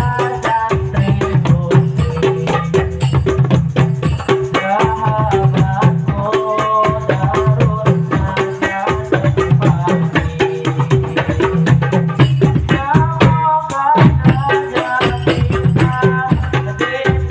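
Sholawat music played loud through a large sound system, with fast dense percussion and rattles over a heavy bass and a wavering melody line.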